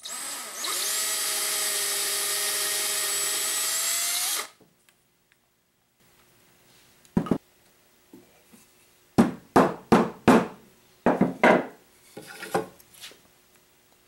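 Cordless drill boring a hole in a small wooden part: the motor spins up, runs steadily for about four seconds and stops. Later comes a run of sharp wooden knocks and clatters, louder than the drill, as the wooden latch pieces are handled and set down on a wooden block.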